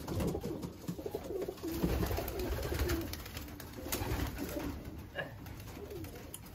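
Homing pigeons cooing in a small wooden loft, low wavering calls, with a single sharp click about four seconds in.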